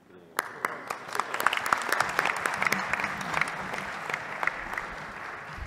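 Audience applauding, a dense clapping that starts suddenly about half a second in after a near-silent pause.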